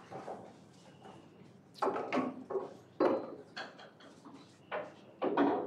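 A handful of soft wooden knocks and bumps, about six of them, irregularly spaced over a few seconds.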